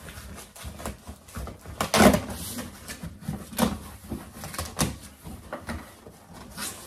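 Cardboard shipping box being handled and opened: flaps pulled back, with a string of scrapes and knocks of cardboard. The loudest knock comes about two seconds in.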